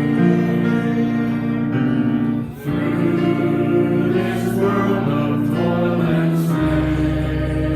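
A church hymn, sung by a congregation over instrumental accompaniment, in slow held chords with a brief break about two and a half seconds in.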